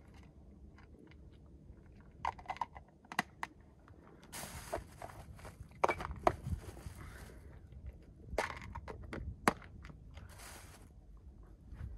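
Close handling sounds: a few sharp clicks, then several short stretches of crinkling and rustling, like plastic being handled, with more clicks between them.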